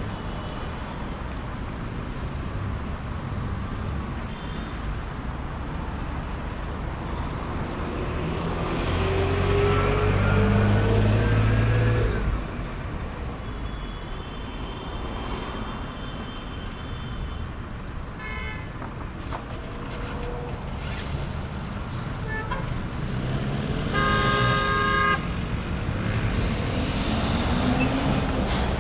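Continuous city street traffic, with cars and heavier vehicles running past. About a third of the way in, a vehicle passes close with its engine pitch rising, and this is the loudest moment. A car horn honks for about a second near the end, after a shorter toot a few seconds earlier.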